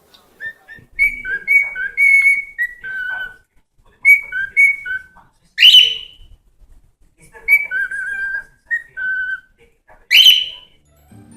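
A pet parrot whistling a tune in short clear notes that hop between two or three pitches. Twice, about halfway through and again near the end, it breaks into a loud, shrill, rising call.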